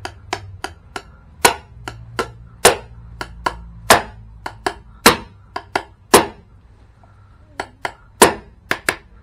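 Hammer blows on the hard steel rod of a paint-roller handle, knocking it straight: a run of about 25 sharp strikes, a few a second, with a short pause about two-thirds of the way through.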